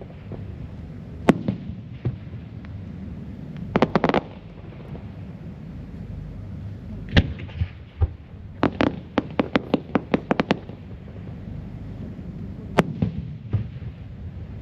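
Aerial display fireworks bursting overhead: single sharp bangs and quick volleys of crackling reports, with a low rumble between them. The densest run of reports comes about halfway through.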